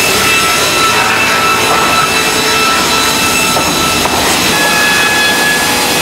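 Industrial bandsaw machinery running and sawing timber: a loud, steady mill noise with several high steady whines, one new whine coming in about four and a half seconds in.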